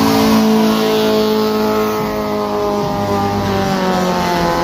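A car's engine held at high revs during a burnout, one steady note that slides slowly lower in pitch.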